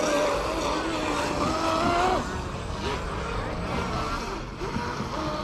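Electric RC speedboats' brushless motors whining at speed across the water. The pitch wanders with the throttle, and the whine falls away about two seconds in.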